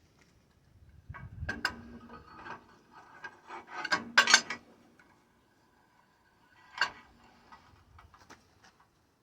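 Steel parts scraping and clanking as they are handled, with faint metallic ringing; the loudest clanks come about four seconds in, with another single sharp clank near seven seconds.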